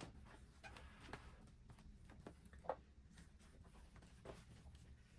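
Near silence: quiet room tone with a few faint, scattered small clicks and taps, the clearest about two and a half seconds in.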